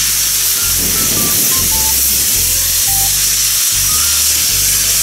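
Steam tank engine (a JNR Class C11) blowing steam from its open cylinder drain cocks as it starts off: a loud, steady hiss. Background music runs underneath.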